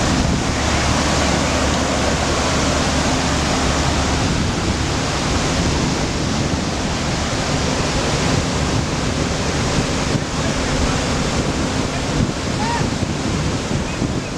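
Floodwater rushing in a loud, steady roar of water noise, with a low steady hum that stops about four seconds in.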